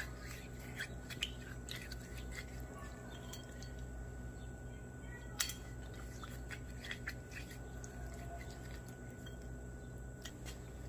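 Faint handling sounds of motor oil being squirted from a plastic bottle and worked by hand over a roller camshaft: scattered small clicks and rustles, one sharper click about five seconds in, over a steady low hum.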